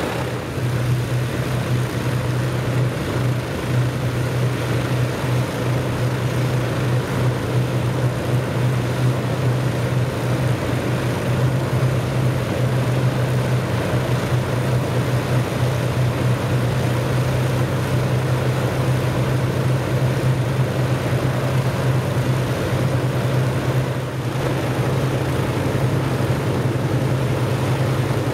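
Avro Lancaster bomber's Merlin V12 engine running steadily on the ground, its propeller turning, with a deep even drone; the level dips briefly near the end.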